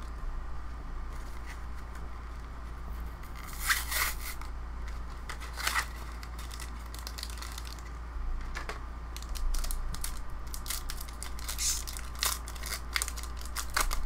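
Foil Yu-Gi-Oh! booster pack wrapper being torn open by hand, crinkling in scattered sharp crackles, a few at first and many more in the second half.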